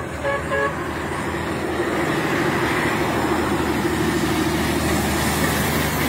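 A DAF lorry's diesel engine running as the truck drives past close by, getting louder about two seconds in. A few short horn toots sound right at the start.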